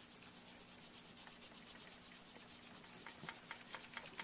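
Hand polishing of a metal saxophone mouthpiece's repaired bite plate: quick, even back-and-forth rubbing strokes, about eight or nine a second, bringing the filled tooth gouge to a shine.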